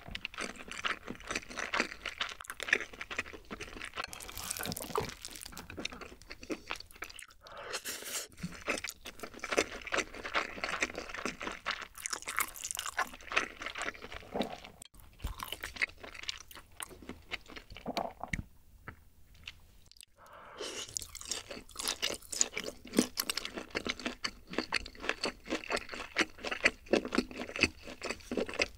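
Close-miked mouth sounds of a person chewing food, a dense run of small crunchy, wet clicks, with a brief lull about two-thirds of the way through.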